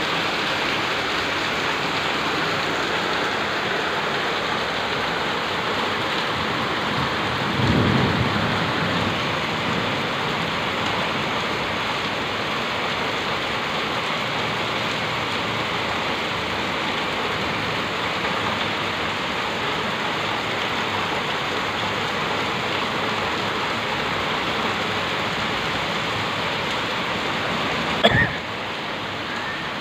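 Heavy rain falling steadily, with a brief low rumble about eight seconds in. Near the end a single sharp knock, the loudest moment, is followed by a slightly quieter rain sound.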